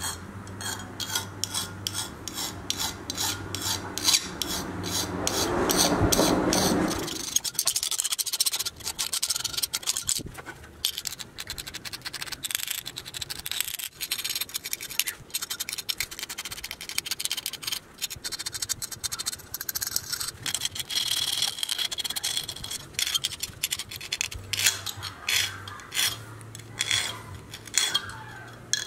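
Hand file rasping along the edge of a thin sheet-steel piece clamped in a bench vise, in a long run of quick back-and-forth strokes.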